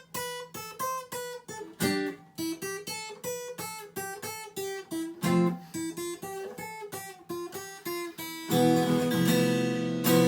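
Acoustic guitar played as a song's instrumental passage: single picked notes, a few a second, then fuller strummed chords from about eight seconds in.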